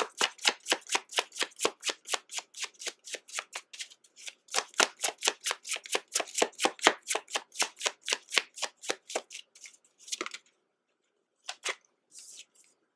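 A deck of tarot cards being shuffled by hand: a quick, even run of card slaps, about five a second, that stops a little after halfway. A few single taps follow as a card is drawn and laid on the table.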